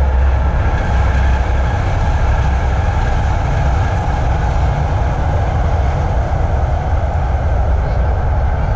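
Steady low rumble with a hiss above it, the running noise of a moving vehicle, holding level throughout.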